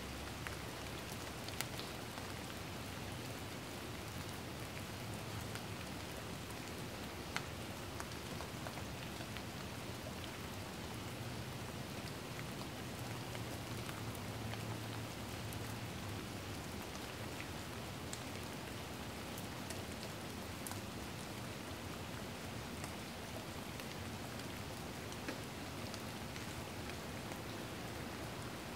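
Steady rain falling, an even hiss with a few faint drip ticks scattered through.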